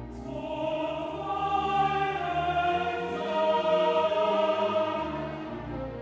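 Orchestral background music with a choir singing long held notes; the voices come in just after the start and fade near the end.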